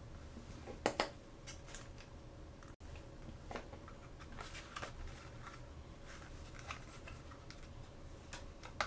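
Hands opening small plastic toy packaging, making scattered clicks, taps and crinkles. The loudest is a pair of sharp clicks about a second in, with another sharp click near the end.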